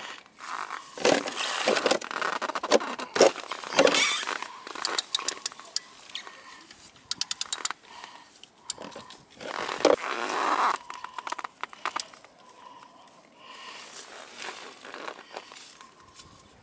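Socket ratchet wrench working the oil drain bolt under a Daelim Q3 scooter's engine: scraping and rustling handling noise with short runs of rapid ratchet clicks, about five and again about seven seconds in.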